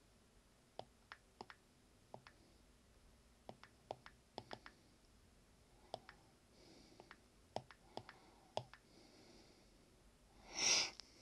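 Irregular light taps on an iPad touchscreen as numbers are keyed into a calculator app, one to three taps a second. A short breath-like rush of air near the end is louder than the taps.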